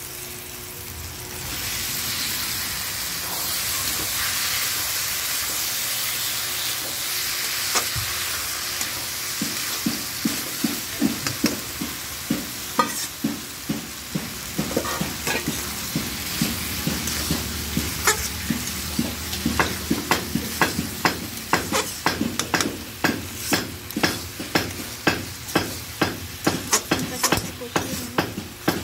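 Boiled mushrooms sizzling as they go into hot spiced oil in a metal kadai, the sizzle starting about a second and a half in. From about ten seconds on, a spatula stirring them and knocking against the pan, about twice a second toward the end.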